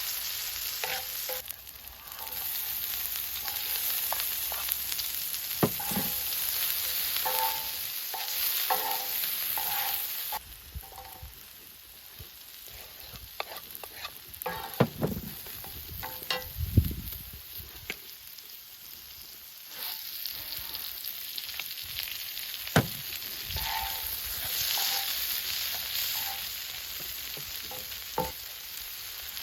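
Food sizzling in a frying pan, a steady hiss broken by scattered clicks, knocks and short clinks of a utensil against the pan. The sizzle drops quieter about ten seconds in and picks up again about ten seconds later.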